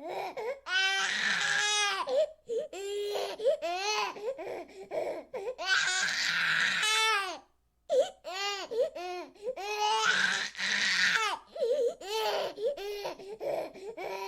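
Infant crying in repeated wailing cries with quick breaths between, three longer wails among shorter cries and a brief pause about halfway.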